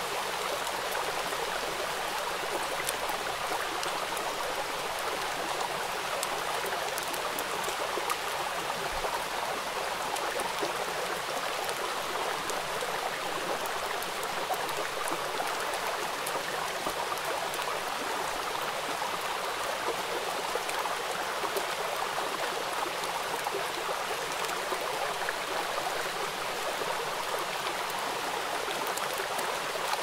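Running water of a stream: a steady rush and splash without the rise and fall of breaking waves.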